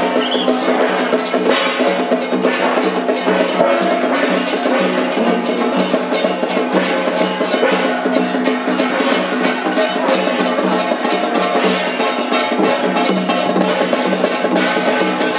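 Loud temple procession music led by percussion: fast, dense drum and gong or cymbal strikes over steady sustained pitched tones, without a break.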